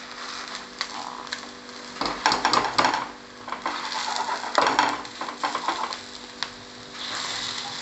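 A spatula scraping and tapping against a non-stick frying pan as it cuts a bread omelette, with the pan sizzling and a steady low hum underneath. The loudest scrapes come about two seconds in and again near the five-second mark.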